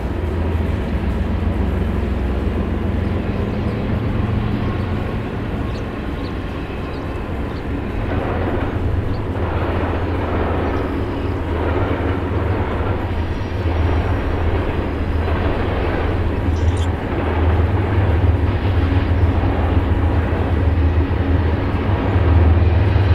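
BNSF diesel freight locomotives passing at a distance: a steady low engine rumble, with a rhythmic clatter of wheels on the rails setting in about eight seconds in and growing louder near the end.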